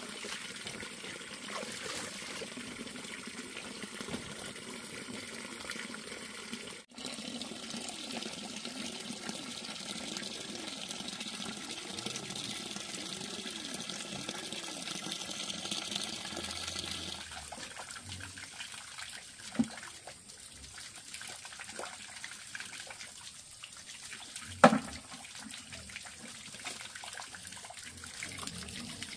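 Water running and trickling steadily. Its sound changes abruptly about seven seconds in and turns quieter later, with two sudden sharp sounds in the second half.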